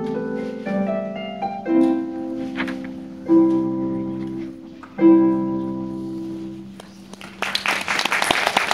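Pedal harp playing the final bars of a study: a short run of plucked notes, then two full chords about two seconds apart, each left to ring and fade. Applause breaks out near the end as the piece finishes.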